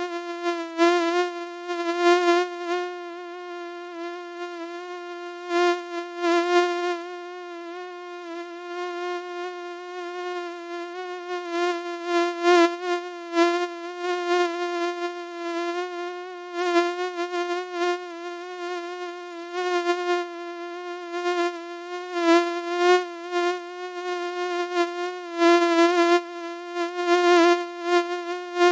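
A mosquito's whine in flight: one unbroken buzzing tone that keeps swelling louder and fading back in uneven pulses every second or two.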